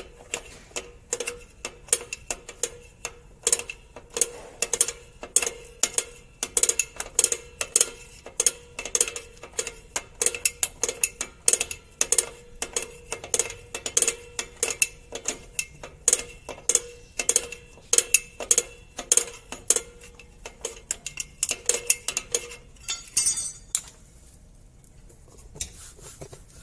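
The star-wheel adjuster of a Kia K2700 drum brake being turned notch by notch with a flat screwdriver through the backing-plate slot. It gives sharp metallic clicks with a slight ring, irregular at about two a second, and they stop near the end. The clicks mark the adjuster spreading the new brake shoes out toward the drum.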